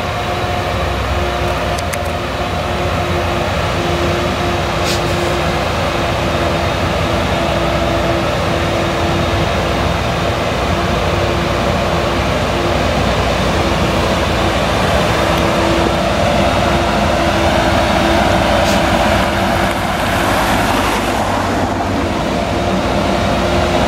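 Claas Jaguar 970 self-propelled forage harvester chopping maize, its MAN V8 engine running steadily under load with a held, humming whine from the chopper drum and crop blower.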